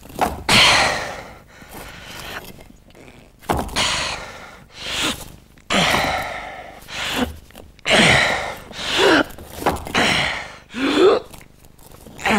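A man's strained breathing and vocal effort: a run of loud gasping breaths and short groans, roughly one a second, some groans falling in pitch. These are the sounds of a man heaving a heavy boulder uphill.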